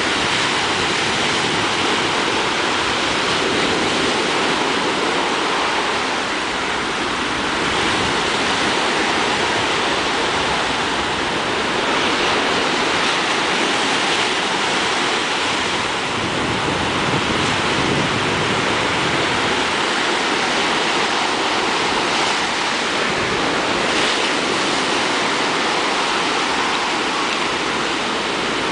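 Sea surf breaking and washing steadily, with wind on the microphone.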